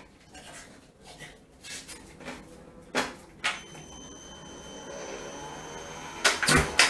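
iFetch automatic ball launcher taking a tennis ball: two sharp knocks as the ball drops into its funnel, then the machine whirs with a steady high whine for a few seconds and fires with a burst of loud clacks near the end.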